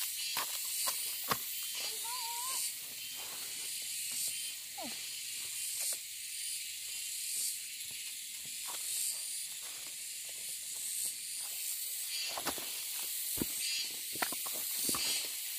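Steady high-pitched outdoor hiss, with scattered light clicks and knocks and a few short chirp-like calls.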